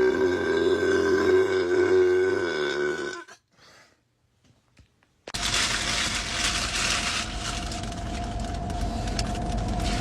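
A long, drawn-out burp with a wavering pitch that ends about three seconds in. After a pause of about two seconds comes a second, rougher and noisier drawn-out sound lasting about five seconds.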